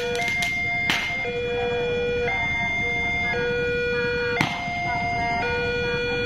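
Level-crossing warning alarm sounding, a steady electronic tone that steps back and forth between two pitches about once a second. Two sharp clicks are heard, one about a second in and one past the middle.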